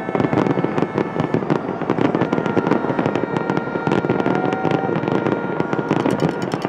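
Fireworks display going off in a dense, unbroken barrage of crackling pops and bangs from bursting shells and crackle effects. A few thin, steady high tones run through it.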